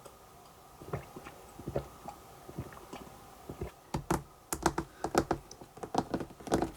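Light clicks and taps from things being handled on the table, a few scattered at first, then a quick run of sharper clicks from about four seconds in.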